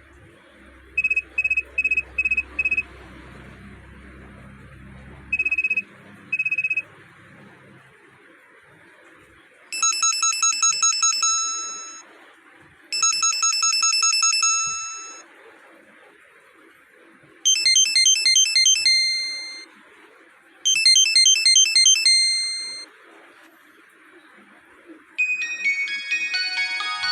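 NTT DoCoMo D505i flip phone's speaker: seven short identical beeps, then four short bell-like melodic phrases, each fading out, then a fuller ringtone melody with many notes at once starting near the end.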